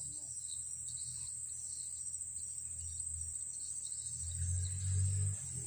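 Insects chirring as a steady high-pitched drone, with scattered faint chirps over it. A low rumble swells briefly about four seconds in.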